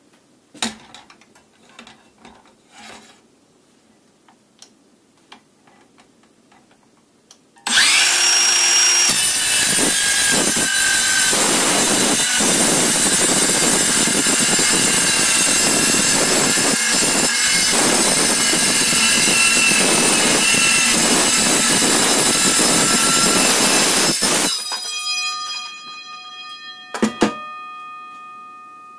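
Makita DCS551Z 18 V cordless metal-cutting circular saw cutting 8 mm steel plate. A few light handling clicks come first. About eight seconds in, the motor spins up with a rising whine, and the blade then cuts steadily and loudly for about sixteen seconds. When the saw stops, several ringing tones hang on, and two sharp clanks come near the end.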